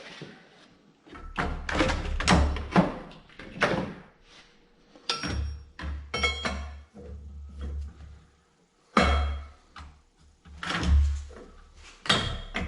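Irregular metal knocks and clanks in several bursts, with a quiet gap of about two seconds past the middle, from a wrench and the engine fan being worked onto the left-hand-threaded fan hub.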